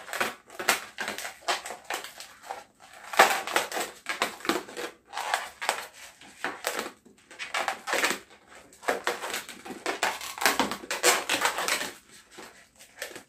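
Inflated latex modelling balloon rubbing and squeaking against the hands as it is twisted and a loop is pushed into place, in a quick, irregular run of short rasping strokes.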